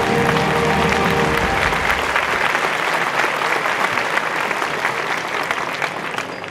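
Audience applauding, a dense patter of many hands that slowly dies away. Entrance music with a bass line plays under it for the first two seconds or so, then stops.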